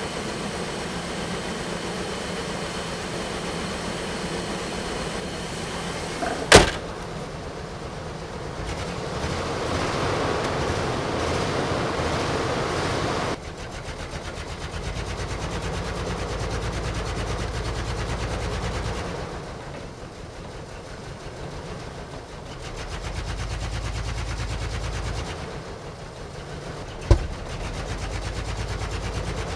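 1997 GMC Sierra's 4.3L Vortec V6 running with a slight misfire after sitting for two years. It swells louder for several seconds, then drops back suddenly. A sharp knock sounds about six and a half seconds in and another near the end.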